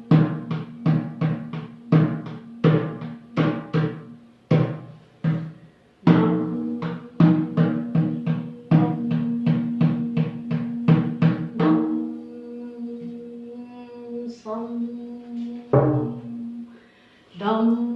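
Drum beaten in quick, uneven strokes with a ringing pitch for about twelve seconds. A steady held tone follows, then one more stroke. A chanted "dum" comes right at the end.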